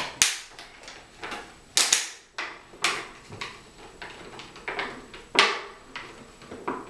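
Plastic bottles clicking and crackling as one is twisted by hand onto a homemade vortex cap made of two taped-together bottle caps. Sharp cracks come every second or two, with softer clicks between them.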